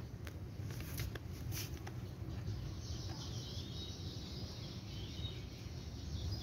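Faint birds chirping in the background, a few short chirps, over a low steady background noise. A few soft clicks in the first couple of seconds come from hands working gravelly soil around cuttings in a concrete pot.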